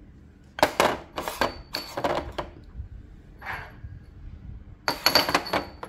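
Yixing purple-clay teapots and their lids being handled: about five bursts of clinking and knocking, clay on clay, a few of them with a brief high ring.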